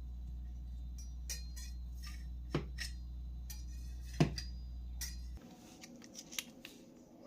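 Kitchen utensils clicking and knocking against dishes over a steady low hum, with two sharper knocks about two and a half and four seconds in. The hum cuts off about five seconds in.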